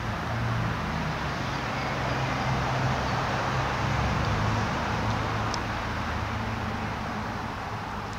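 Steady city traffic noise with a low engine rumble underneath, swelling a little in the middle and easing off near the end; a faint high tick about five and a half seconds in.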